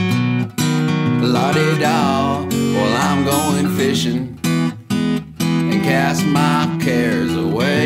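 Background music: a country song with strummed acoustic guitar.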